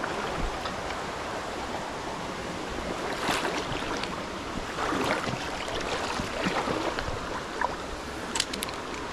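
Shallow river water running and rippling in a steady rush, with a couple of brief clicks, one about a third of the way in and one near the end.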